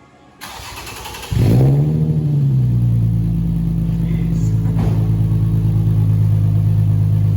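Nissan 350Z's V6 starting up through its exhaust: the starter cranks for under a second, then the engine catches with a quick rev flare and settles into a steady idle.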